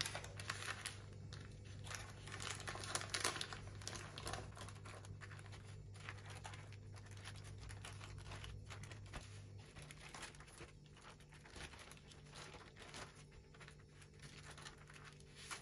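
Baking paper crinkling and rustling as an omelette sheet is rolled up in it, busier in the first few seconds and fainter afterwards.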